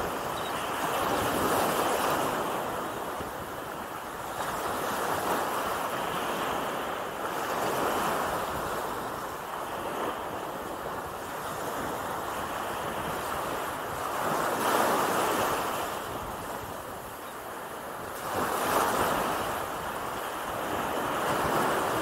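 Small Gulf of Mexico waves breaking and washing up a sandy beach at the water's edge, the surf noise swelling and ebbing every few seconds as each wave runs in.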